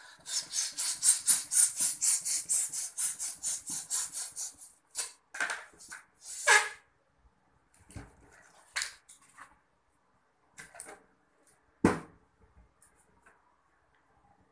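Handheld balloon pump worked rapidly, about five quick hissing strokes a second for some four and a half seconds as it inflates a latex balloon, then three longer strokes. After that come faint scattered rubbing sounds of the balloon being handled and tied, and a single knock about twelve seconds in.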